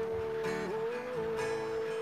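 A man singing one long held "oh" to strummed acoustic guitar. The note slides up to a higher pitch a little past halfway, and a couple of guitar strums sound under it.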